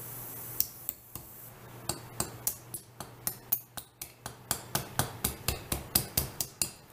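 A pointed tool tapping and picking at the hard cured epoxy resin shell of a cast wood blank, making sharp clicks about three or four a second. It follows a short hiss of trapped air let out of the resin casting, which stops under a second in.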